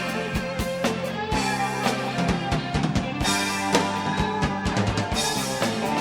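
Live band playing an instrumental passage between verses: drum kit with kick and snare keeping a steady beat under sustained guitar and bass.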